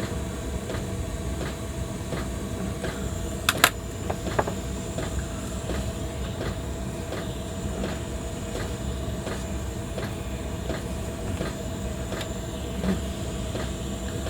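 Fennex 3-in-1 butane gas soldering iron burning with the gas turned up full: a steady hiss with a low rumble. Light taps run through it while the tip is tinned, with one sharp click about three and a half seconds in.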